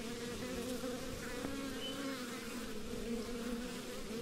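Honey bees buzzing steadily from an open hive, a low, even hum.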